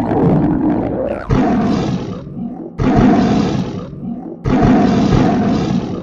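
Loud, exaggerated hungry-stomach growling: a deep, roar-like rumbling that cuts in abruptly about every one and a half seconds and fades away each time.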